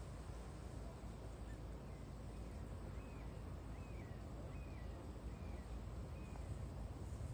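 A bird calling a series of short, high, dipping notes, about two a second, over a steady low rumble.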